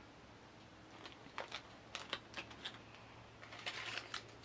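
Faint crinkling of small plastic zip-lock bags with scattered light clicks and taps as they are handled and set down, and a brief denser rustle of plastic and paper near the end as a hand reaches into the box.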